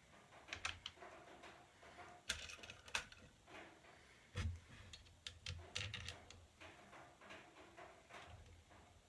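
Faint, irregular clicks and knocks of small parts and tools being handled while assembling a 3D printer kit, with a few louder knocks about two, three and four seconds in.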